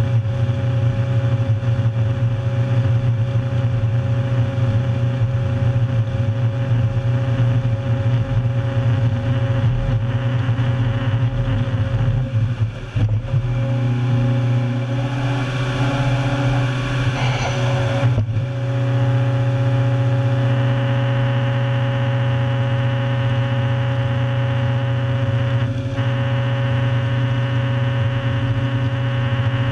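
The 400-plus horsepower diesel engine and hydraulics of a tracked stump-destroyer machine running hard under load as its rotary cutter head planes a stump into chips. A steady deep drone; about halfway through the note dips briefly, and a harsher grinding noise rises over it for a few seconds.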